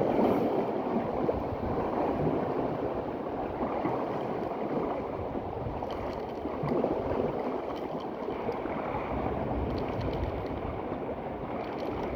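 Steady wash of waves and water, with wind gusting on the microphone as a rough low rumble.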